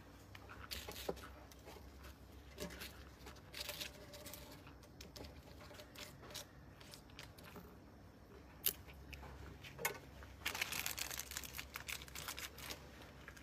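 Cotton swab scrubbing across a wet paper banknote in short scratchy strokes, with a few sharp clicks. Near the end a rubber-gloved hand rubs over the bill, a dense crackling rustle for about two seconds.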